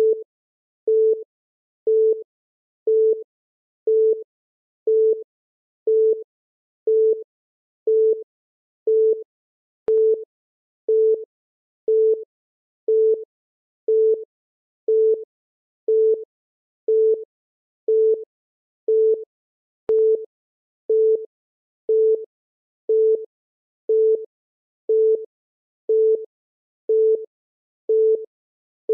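Countdown timer beeping: a short electronic beep on one low steady pitch, once every second in an even rhythm.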